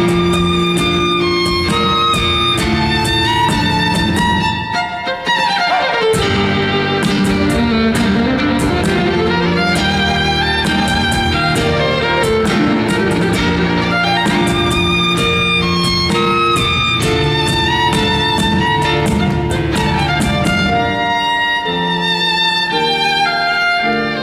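Solo violin playing a melody over a loud backing track with a steady drum beat and bass. About five seconds in there is a falling swoop in pitch and a brief dip in level.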